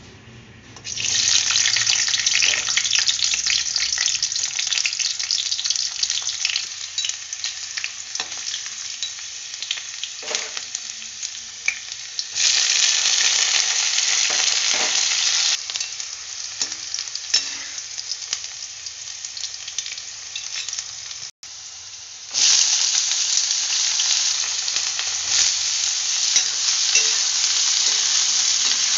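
Chopped garlic sizzling in hot oil in a steel wok. The sizzle starts abruptly about a second in as the garlic hits the oil. It jumps louder twice more as further ingredients, green chillies and then julienned vegetable strips, go into the oil.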